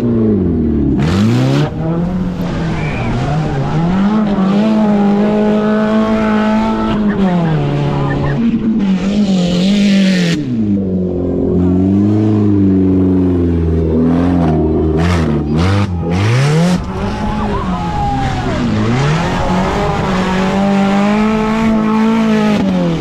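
Offroad race car engine revving hard, its pitch dropping and climbing again several times as the throttle is lifted and reapplied, and holding high between. A short rushing noise comes about ten seconds in.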